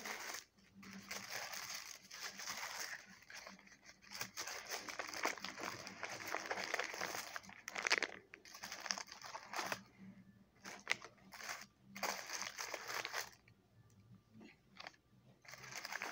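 Cardboard and paper packaging being handled and opened by hand: irregular crinkling, crunching and rustling in short spells with brief pauses between them.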